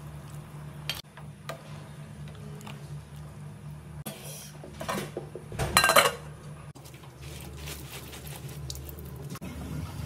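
Stainless steel pot and ladle clinking as bones are lifted from the broth, with a few sharp knocks early, then a clatter of the metal lid being set on the pot about six seconds in, the loudest sound. A steady low hum runs underneath.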